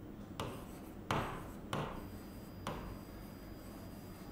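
Marker writing on a whiteboard: four short strokes, each starting sharply and trailing off.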